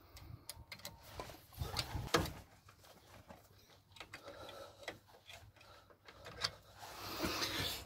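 Faint, scattered metallic clicks and scrapes as a handbrake shoe hold-down pin and its coil spring are pressed through the shoe and turned into place with a tool.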